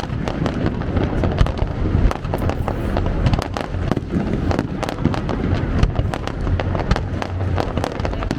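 Fireworks display going off continuously: a dense, irregular run of sharp bangs and crackles, several a second, over a constant rumble.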